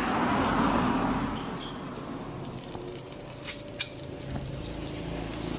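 Outdoor street background with a vehicle passing, loudest in the first second and then fading, followed by two light clicks of a metal spoon against the cast-iron kanom krok pan about three and a half seconds in.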